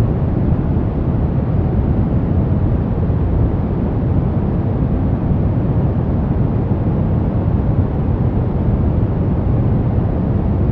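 Steady relaxation noise track sold as white noise, though it sounds deep and rumbling rather than hissy, with most of its weight in the low end and little up top. It holds even throughout, with no changes or separate sounds.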